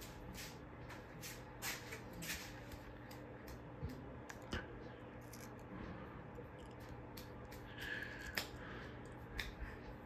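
42-inch Menards ceiling fan running with a faint low motor hum and scattered light clicks.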